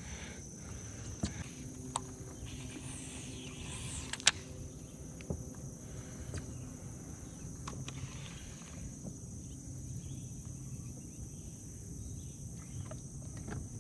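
Steady high-pitched insect chorus, cricket-like, with a few sharp clicks and knocks scattered through it, the loudest about four seconds in.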